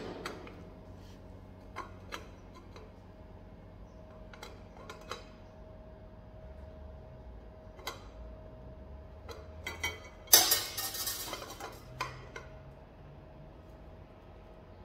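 TIG tack welding on a metal intake pipe at a workbench: a steady faint hum with scattered light metallic clicks and taps, and a louder rush of noise lasting about a second, about ten seconds in.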